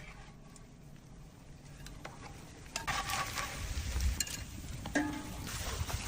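Food sizzling in a hot pan while it is stirred, with a few clinks of a utensil against the pan; the sizzle grows louder about three seconds in.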